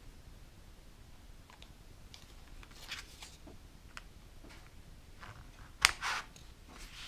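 Plastic scraper card dragged over a metal nail stamping plate to scrape off excess polish. A soft scrape comes about three seconds in, then a sharp click and a short scrape near the end.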